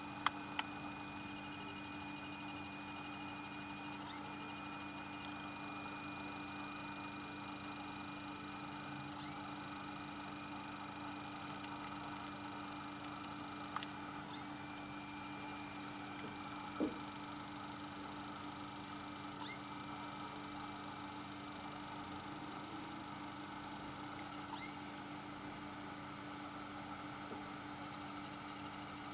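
APC 500 uninterruptible power supply whistling: several steady high-pitched tones over a low hum. About every five seconds the whistle cuts out for an instant and comes back with a brief upward glide.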